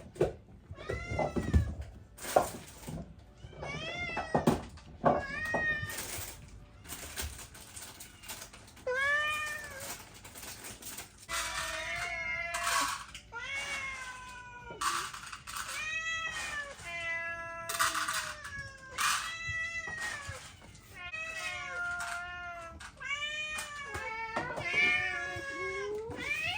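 Domestic cat meowing over and over, a string of arched, rising-and-falling meows about a second apart. A few sharp knocks come in the first couple of seconds.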